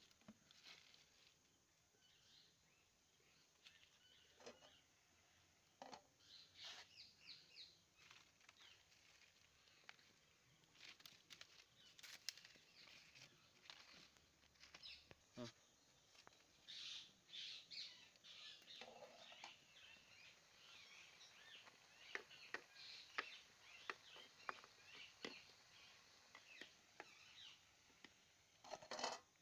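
Quiet outdoor ambience with faint scattered bird chirps and occasional small knocks. Near the end comes a short, louder scrape of a ladle stirring in a clay pot.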